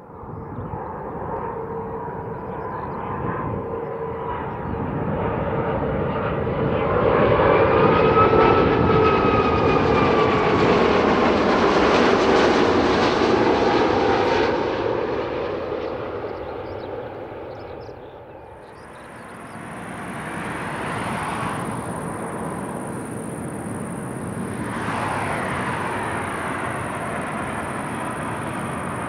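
Jet engines of an Airbus A330-200 on its landing: the noise builds to a loud peak with a whine that rises and falls, eases off about eighteen seconds in, then swells again with a steady high hiss.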